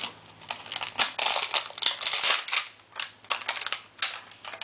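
A large taped Warheads candy egg being pulled open by hand: an irregular run of crackling, tearing and clicking from the tape and the egg's shell.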